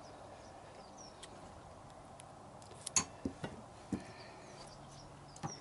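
A few light, sharp clicks, most of them bunched about halfway through: scissors and a strip of stick-on wheel balance weights being handled and cut.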